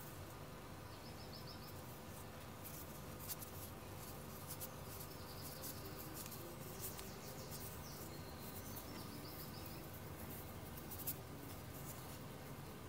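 Quiet background ambience: a low steady hum with scattered faint clicks and a few short, faint high chirps.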